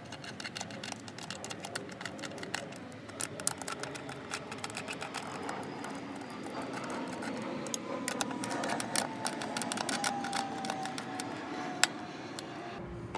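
Rapid light metallic clicking and rattling of a 10 mm socket on an extension, spun by hand to run a throttle-body bolt down its threads, hand-tight before final tightening.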